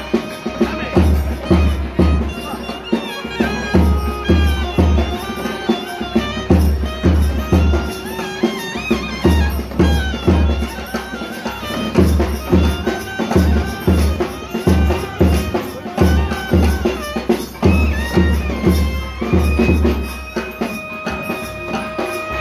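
South Indian temple procession music: a nadaswaram plays a winding, gliding melody over a held drone, while a thavil drum beats quick runs of low strokes.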